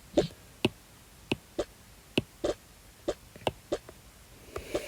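Light knocks and clicks of dishes, cups and a drink bottle being handled and set down on a table, a dozen or so at uneven intervals.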